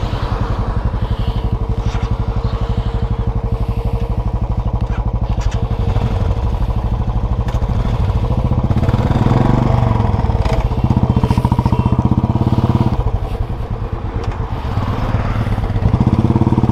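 Motorcycle engines idling with a rapid, even beat. The engine gets louder around the middle and again near the end as the bikes pull away onto the road.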